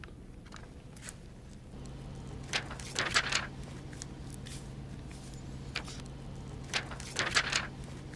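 Soft rustling and crinkling as a vented chest seal is handled and pressed onto the chest, in two short spells with a few light clicks, over a low steady hum that starts about two seconds in.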